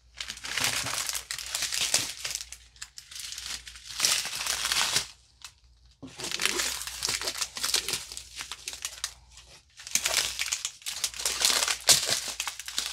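Small plastic bags of diamond-painting drills crinkling as they are handled and shuffled, with a short pause about five seconds in.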